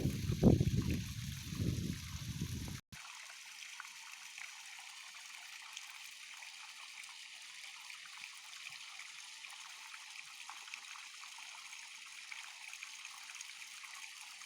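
Irrigation water running and trickling along a field furrow. A loud low rumble over the first three seconds cuts off suddenly, leaving a steady, fainter flow.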